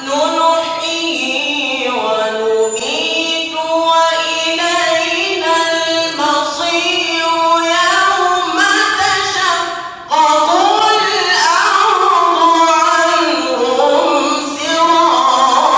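A solo voice reciting the Quran in melodic tajweed style, drawing out long ornamented notes that waver up and down in pitch, with a brief break for breath about ten seconds in.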